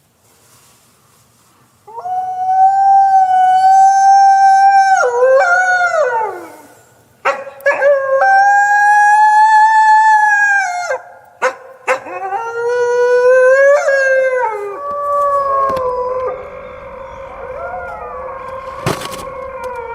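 Wolf howling: three long howls, each held on a fairly steady pitch and then falling away at the end, starting about two seconds in. From about three-quarters of the way through, several wolves howl together more quietly in an overlapping chorus.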